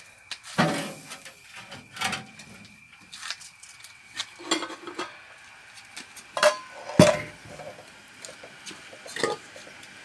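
Metal pots and a large cooking pan clanking and knocking as they are handled while boiled grape must is transferred into pots. It is a string of separate clanks at irregular spacing, the loudest about seven seconds in.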